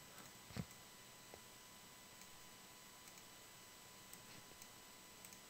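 Near silence with a few faint computer mouse clicks, the clearest about half a second in.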